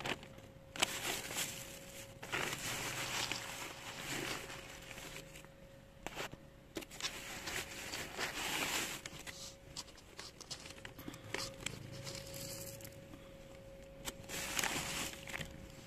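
Plastic cat-food packaging crinkling and rustling in several bursts of a second or two each.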